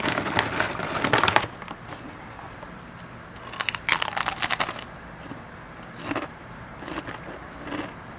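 Lay's potato chip bag crinkling as a chip is taken out, then a crisp crunch as the potato chip is bitten about three and a half seconds in. After the bite come three softer chewing crunches, close to the mouth.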